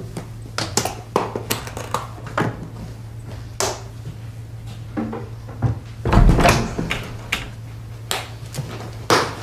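Scattered knocks and thuds of objects being picked up, moved and set down in a room, with a louder clatter about six seconds in, over a steady low hum.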